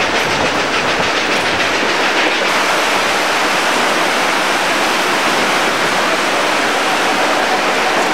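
Steady rushing noise of a steam-hauled train riding along, its coaches rolling on the rails, mixed with whitewater rapids running beside the track.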